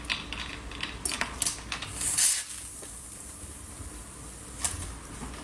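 Light clicks and knocks of a plastic soda bottle and its cap being handled and screwed on, with a brief loud hiss about two seconds in.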